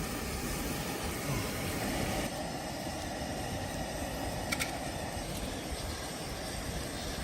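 Blizzard wind rushing and buffeting the microphone as a steady low rumble, with a brief faint tick about halfway through.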